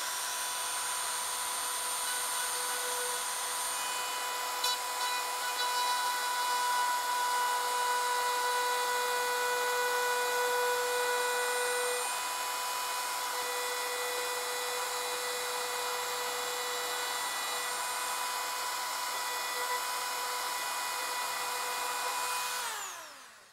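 Rotary tool spinning a short length of 2.85 mm PLA filament against the seam of two 3D-printed parts, friction-welding them: a steady high motor whine with the rub of the filament against the plastic. It is a little louder for several seconds in the middle, and the motor winds down near the end.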